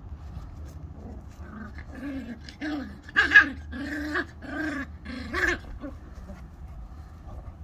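Beagles play-fighting: a run of about eight short, growly yaps, loudest about three seconds in, dying away after six seconds.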